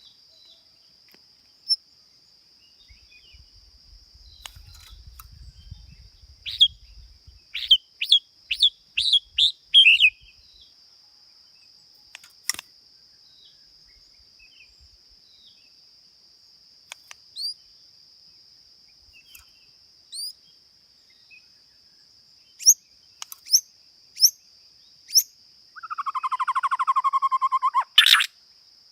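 Songbird calling: a quick run of sharp, upward-flicking notes, then scattered single notes, then a buzzy chattering trill near the end, over a steady high insect drone.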